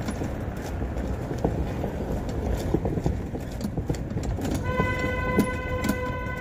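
Rattling and clanking of a bicycle towing a camper trailer as it rolls over stone-slab paving, with a steady rumble and frequent small knocks. About two-thirds of the way in, a steady horn-like tone joins and holds for a few seconds.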